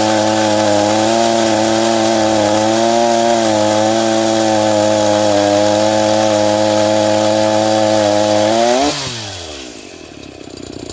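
Stock, unported Echo CS-4910 two-stroke chainsaw with a 20-inch bar running flat out while cutting a round off a cherry log, its pitch wavering a little under load. About nine seconds in the throttle is let off and the engine note falls quickly to idle as the cut ends.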